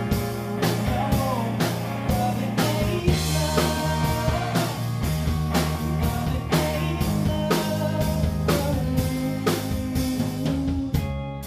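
Live rock band playing an instrumental break: electric guitars, bass and drum kit over a steady beat, with a lead guitar line bending in pitch. Near the end the drums stop and the guitar chords ring on.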